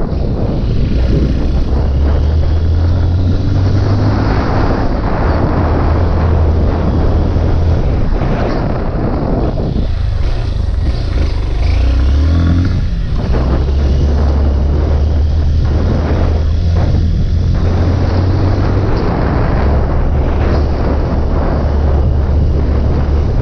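Honda Bros 160 motorcycle's single-cylinder engine running steadily under way, with wind buffeting the microphone. About halfway through, the engine note drops away and then climbs back up.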